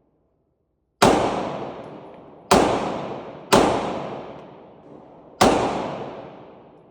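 Four shots from a Glock 26 9 mm pistol, fired at uneven intervals, each ringing out in a long echo that fades before the next shot.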